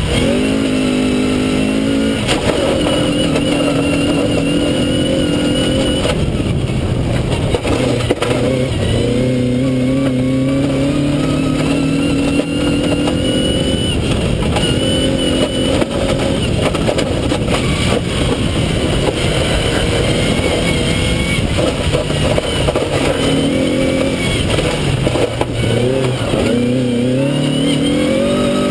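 Rally-prepared Vauxhall Nova 1.4SR engine on motorcycle carburettors at full effort, revs climbing and dropping back again and again through gear changes, over a steady hiss of tyres on loose gravel.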